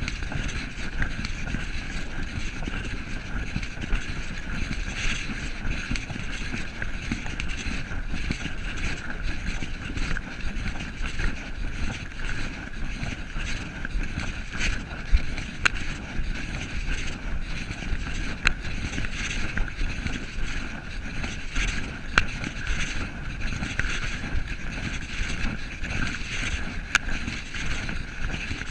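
Steady rumble and hiss of wind and movement on a moving camera's microphone, with a few faint clicks.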